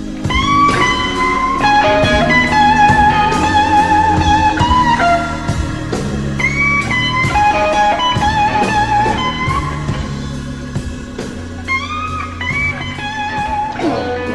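Slow electric blues played by a band: an electric guitar lead with sustained, bent notes and wide vibrato over bass and drums.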